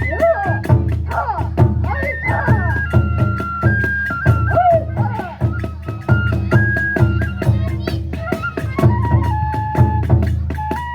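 Kagura festival music: a transverse bamboo flute playing a held, stepping melody over fast, steady drum beats and small hand cymbals.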